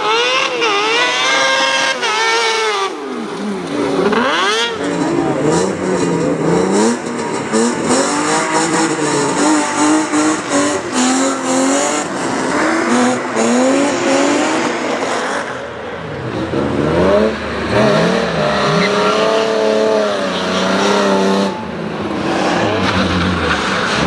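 A cross-kart buggy's high-pitched engine revs hard for about the first three seconds. After that, a BMW E30 race car's engine revs up and down repeatedly on and off the throttle.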